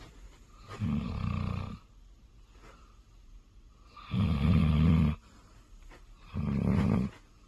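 A sleeping hound snoring loudly, three deep rumbling snores about two to three seconds apart.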